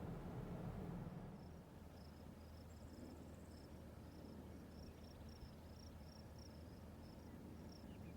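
Insects chirping faintly in short repeated chirps over a low steady hum; a louder low rumble fades out about a second in.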